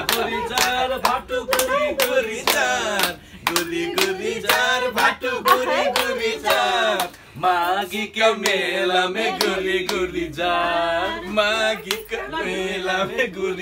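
A small group of men and women singing a song together, with hand clapping keeping a steady beat of about two claps a second.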